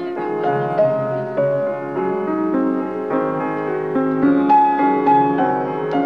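Piano music: a melody moving over held chords.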